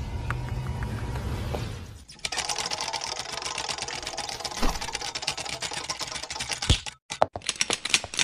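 Sound effects for an animated intro. A low rumble fades out about two seconds in. Then comes a fast, dense run of clicks, broken into a few short sharp bursts near the end.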